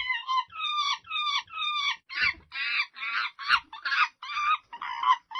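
Monkey calling in a quick run of short, high-pitched calls, about two a second, many dropping slightly in pitch.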